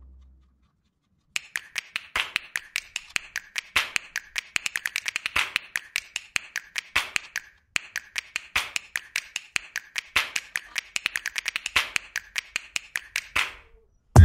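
Hand ratchet wrench clicking in quick runs of strokes, several clicks a second, with short pauses between runs.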